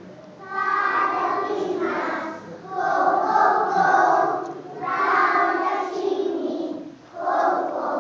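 A large children's choir singing, in phrases of a second or two with short breaks between them.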